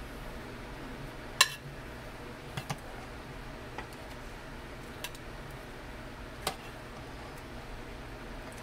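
Metal serving spoon clinking against the pot and a ceramic plate as pork stew is scooped and served. About six sharp clinks, the loudest about a second and a half in.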